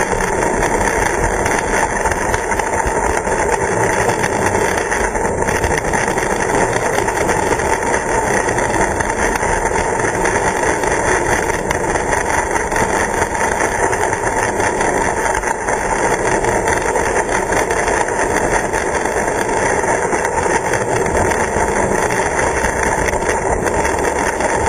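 Steady mechanical running noise of a 16 mm scale garden-railway model diesel locomotive and its wagon, heard up close: the motor and gearing whirring and the wheels running on the track.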